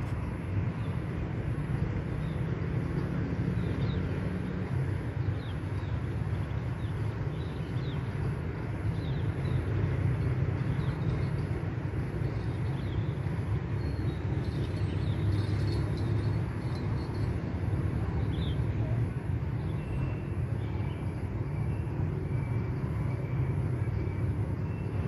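Steady low rumbling outdoor background noise, with faint short high chirps now and then.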